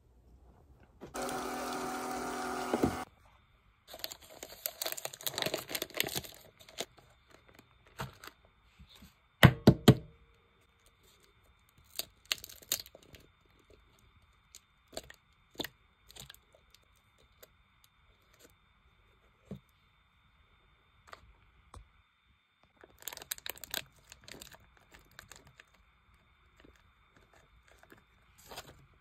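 Eggs being cracked into a plastic cup: two sharp knocks about ten seconds in, the loudest sounds, among light clicks, taps and rustling plastic packaging. A steady buzz lasts about two seconds near the start, and a faint steady high whine runs underneath from about six seconds in.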